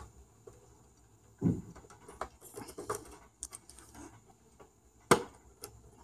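Hands working wires and piggyback spade connectors onto the main switch inside a Rancilio Silvia espresso machine: scattered rustling and small clicks, a soft knock about one and a half seconds in, and one sharp click about five seconds in.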